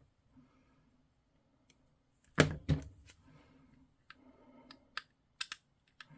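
Sprue cutters clipping plastic miniature parts off a sprue: two sharp snips about two and a half seconds in, then several lighter clicks of plastic being handled.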